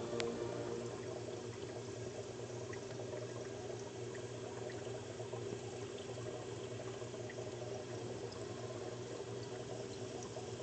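Aquarium water bubbling and trickling steadily over a low hum from the tank's equipment, with a single sharp click just after the start.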